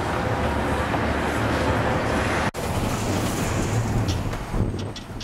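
Busy city street traffic: cars, taxis and a bus running past in a steady rumble, cut off abruptly by an edit about halfway through, after which a quieter outdoor background takes over.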